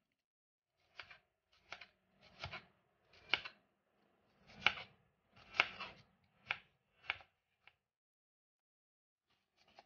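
Chef's knife slicing half an onion into strips on a wooden cutting board: about nine separate crisp cuts at an uneven pace of roughly one a second, pausing about eight seconds in, with a few faint cuts near the end.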